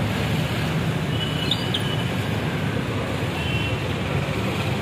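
Steady street traffic noise: a continuous low rumble of passing engines, with two faint, brief high-pitched tones about a second and a half in and again about three and a half seconds in.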